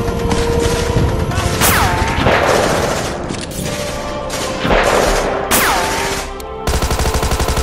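Dubbed war-film battle effects: scattered gunfire and two falling whistles about four seconds apart, each followed by a loud rush like a blast. Near the end a rapid, evenly spaced machine-gun burst starts, with music underneath.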